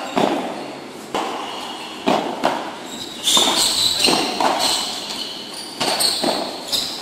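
Padel ball being bounced and struck with paddles: a string of sharp knocks, about one a second at first and then closer together, echoing in the covered court.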